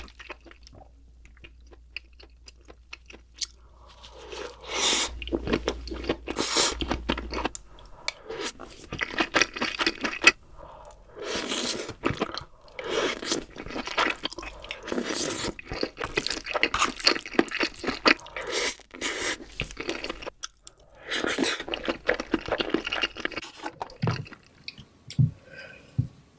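Close-miked eating of king crab: repeated crunching and chewing in bursts separated by short pauses, starting after a few quiet seconds.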